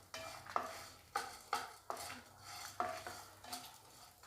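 A metal spoon stirring and scraping ingredients sautéing in oil in a metal pan, clinking against the pan about eight times at uneven intervals.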